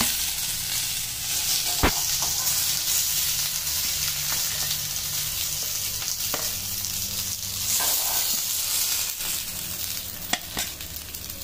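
Pomfret steaks sizzling steadily in oil on a cast-iron dosa tawa, cooked through, with a few sharp metal clicks as a steel spatula lifts the pieces onto a steel plate.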